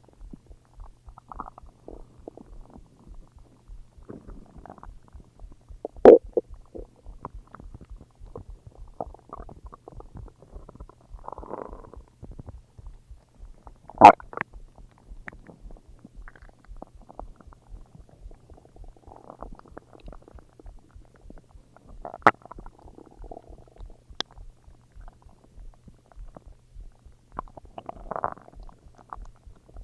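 Human stomach growling and gurgling in scattered, irregular rumbles, with three short, much louder gurgles about eight seconds apart, over a faint steady hum.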